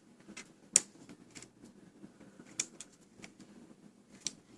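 Irregular light clicks and taps of small screws, a screwdriver and the laptop's plastic screen housing being handled, about half a dozen, the loudest a little under a second in.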